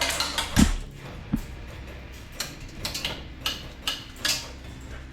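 A series of sharp clicks and knocks at irregular intervals, about a dozen over five seconds, over a steady low hum.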